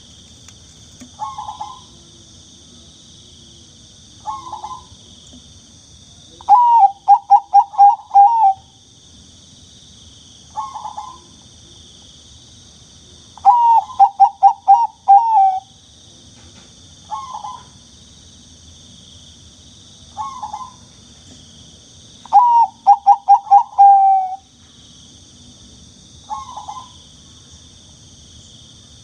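Zebra dove (Bangkok perkutut) cooing: short single coos every few seconds, and three times a loud phrase of five or six quick coos. A steady high insect hiss runs underneath.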